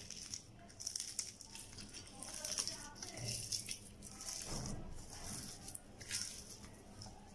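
Hands mashing and kneading boiled potato with salt and fried onion in a bowl: irregular soft squishing and crackling, with a faint voice in the middle.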